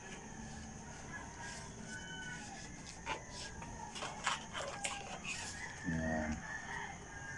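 Faint rooster crowing, with scattered clicks and rustles of cardboard packaging being handled.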